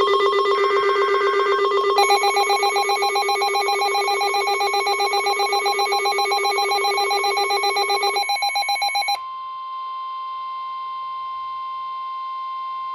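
Emergency alert tones: a loud, rapidly pulsing multi-tone ringing alarm for about nine seconds, then a steady single tone near 1 kHz, the NOAA Weather Radio 1050 Hz warning alert tone.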